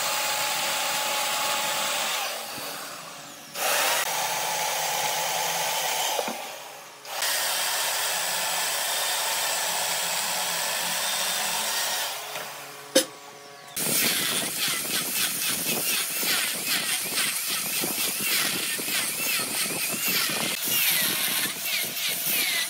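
Woodworking power tool running in stretches, stopping briefly three times, with a sharp click about 13 seconds in. From about 14 seconds the sound turns choppier and rapidly fluttering.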